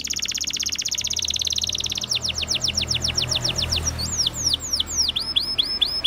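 Canary singing in a string of repeated-note phrases. It opens with a very fast, high trill lasting about two seconds, goes into a run of quick falling notes, then a few wide swooping notes, and ends with evenly repeated curved notes at about four a second.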